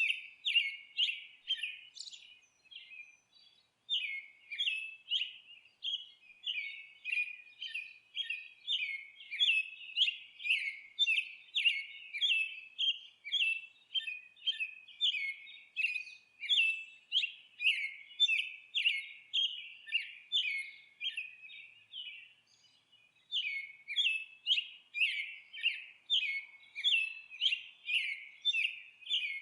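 Small songbird chirping: a fast, even run of short high chirps, about two or three a second, broken by brief pauses about three seconds in and again about three-quarters of the way through.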